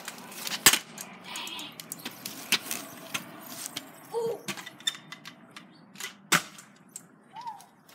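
Kick scooter on a concrete sidewalk: sharp, irregular clacks and knocks from its small wheels and deck, three of them loud, over a faint rolling hiss.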